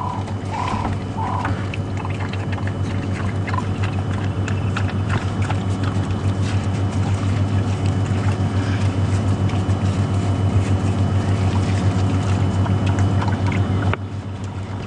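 Game-drive vehicle's engine running steadily with a low hum that grows a little louder through the middle, and a few short high calls near the start. The sound drops suddenly about a second before the end.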